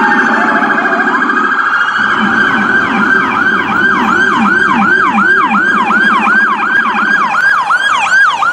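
Electronic emergency-vehicle siren sounding loudly with several tones layered. A fast warble is joined about three seconds in by a rapid yelp, quick repeated pitch sweeps at about two to three a second.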